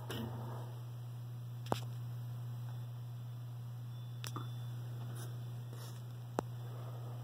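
1918 Emerson 19646 electric fan's AC motor running with a steady low hum. There is a brief rubbing sound at the start and three sharp clicks spread through it.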